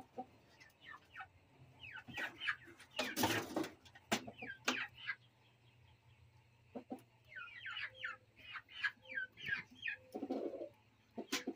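Chickens in a wire cage chirping and clucking in short, falling calls, with a few knocks and rustles.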